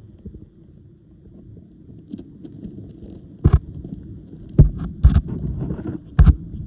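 Muffled underwater sound picked up by an underwater camera in a shallow tide pool: a low, steady water rumble, with four loud knocks in the second half.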